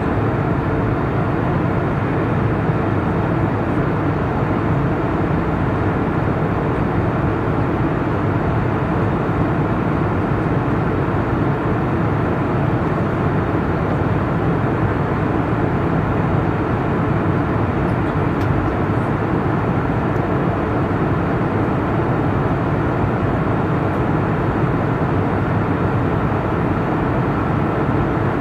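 Steady drone of an airliner in flight, heard inside the passenger cabin: engine and airflow noise at cruise.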